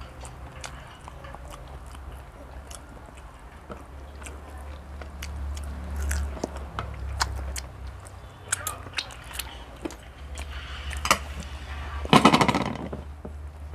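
People chewing and biting food at a meal, with many small sharp clicks throughout. Near the end a loud, rough sound lasts about a second.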